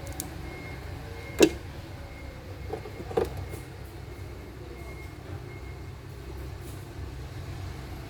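A steady low mechanical rumble with a sharp click about one and a half seconds in, followed by two softer knocks around three seconds in.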